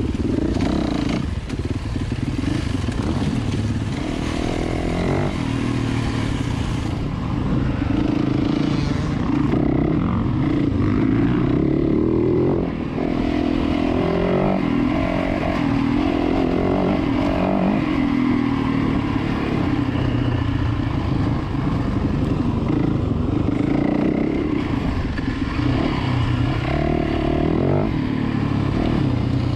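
Yamaha WR450F dirt bike's single-cylinder four-stroke engine running under load on a trail, its revs rising and falling over and over.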